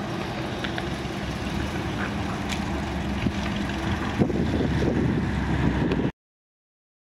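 1957 Chevrolet Bel Air's 283 cubic-inch Power Pack V8 running through its dual exhaust as the car drives by at low speed. The exhaust note grows a little louder and rougher about four seconds in, then cuts off abruptly about six seconds in.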